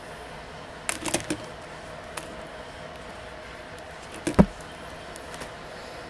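Small plastic clicks and taps from jumper wires and a multi-pin connector being handled and fitted to a small circuit board, a quick cluster about a second in, with a louder knock about four and a half seconds in, over a faint steady hum.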